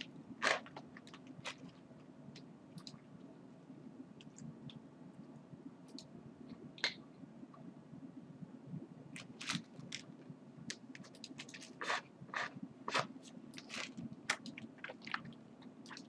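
Computer mouse clicking: short, sharp, irregular clicks, a few in the first half and then about two a second in the second half, over a faint steady low hum.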